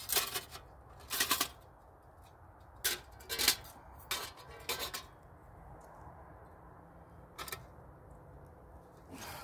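Sooty metal panels of a collapsible camp cook stove knocked and scraped against a rock to clean off the soot, in about seven short, sharp bursts, most of them in the first few seconds and one more a couple of seconds later.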